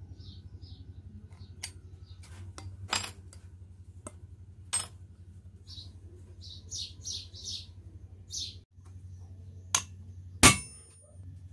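A few sharp snips of scissors cutting thin metal sheet in the first seconds, then near the end a hammer knocking on a knife blade laid along a point of a thin metal star to crease it, the loudest blow ringing briefly. Birds chirp repeatedly behind, over a steady low hum.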